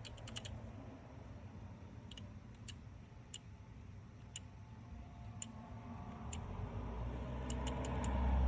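Scattered single clicks from a hand torque wrench, with a quicker run of clicks near the end. A low rumble builds up over the last couple of seconds.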